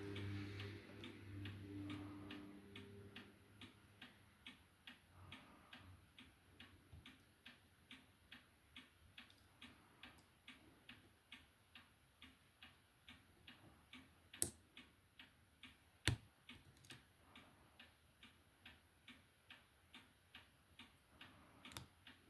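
Faint, steady ticking of a clock, about two to three ticks a second. Two sharp, louder clicks from the padlock being picked come about fourteen and sixteen seconds in.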